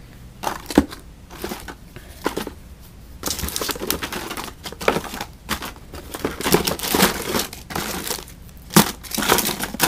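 Hand rummaging through a cardboard box of fishing tackle in plastic blister packs and bags: plastic packaging crinkling and rattling, with sharper clicks now and then. It gets busier from about three seconds in.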